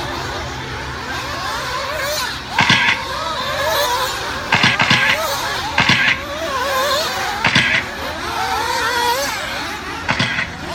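Several nitro RC buggy engines running at high revs around the track, their pitches rising and falling through the corners and straights, with about five short, louder bursts as cars pass close.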